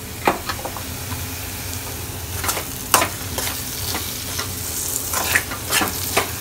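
A steel spatula scraping and stirring scrambled egg and ground onion in a steel kadai, over a steady sizzle of frying. The scrapes come irregularly about once a second, the sharpest about three seconds in.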